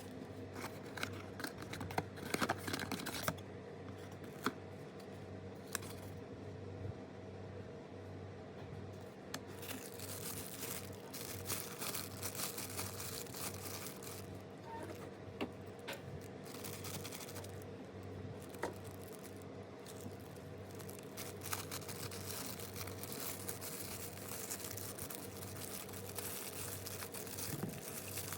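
Blind-box packaging being opened by hand: plastic and foil wrappers crinkling and tearing, with scattered small clicks and taps of handling, over a faint steady hum.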